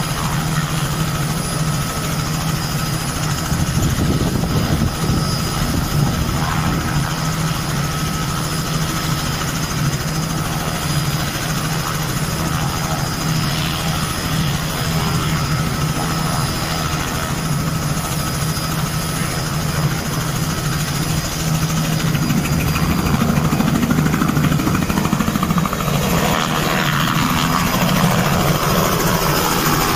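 Light helicopter's engine and main rotor running steadily on the ground, then growing louder in the last several seconds as it lifts off into a hover.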